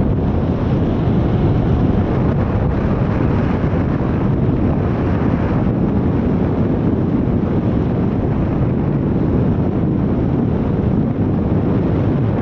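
Steady, loud wind rushing over the microphone of a harness-mounted camera on a paraglider in flight, a deep even rumble with no engine.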